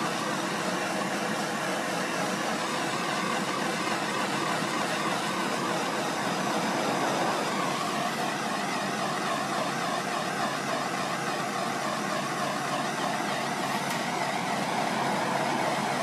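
Steady hiss of a hose-fed gas torch flame heating heat-shrink tubing on a heavy battery cable's lug, over constant shop background noise.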